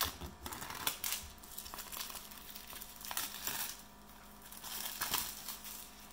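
Clear plastic wrap crinkling and cardboard packaging rubbing and sliding as a product box is unwrapped and opened, in irregular bursts of rustling.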